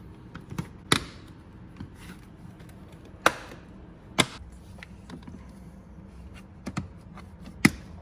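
Scissors cutting and handling plastic while dashcam wiring is tidied: a few sharp separate snips and clicks spread over the seconds, with fainter ticks between them.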